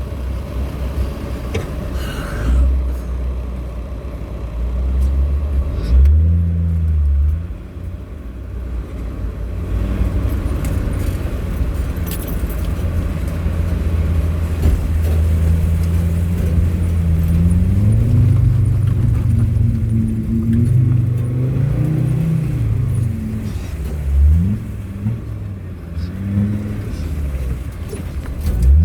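Land Rover Defender 90's Td5 five-cylinder turbodiesel engine under way, its note holding steady then rising and falling several times as it is revved and shifted through the gears, with a brief lift-off about seven seconds in.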